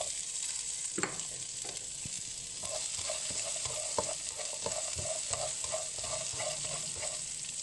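Chopped onion sizzling in hot oil in a frying pan with fried dal and chillies, stirred with a spatula that scrapes and taps the pan. The sizzle is steady, and the quick scraping taps of stirring come thicker from about a third of the way in.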